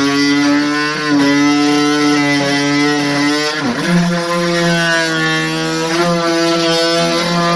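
An engine running steadily with a strong pitched drone; its pitch drops and settles lower about three and a half seconds in.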